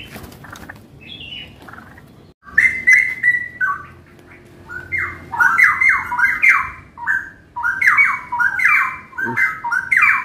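Caged straw-headed bulbul (cucak rawa) in full song. After faint chirping, a loud continuous run of rich phrases built of short falling notes starts about two seconds in.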